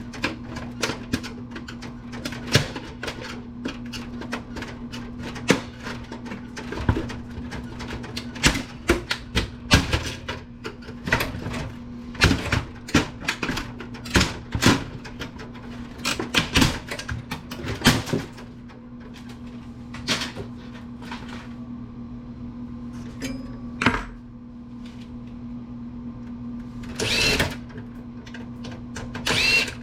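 Irregular clicks, knocks and clatter of tools and metal parts as an old Apple desktop computer is taken apart, busiest in the first two-thirds, with two longer metallic clatters near the end. A steady low hum runs underneath.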